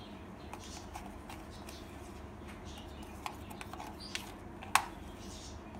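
Faint clicks and scrapes of a spoon scooping boric acid powder from a plastic tub and tipping it into a bowl, with one sharper tap a little before the end, over a steady low hum.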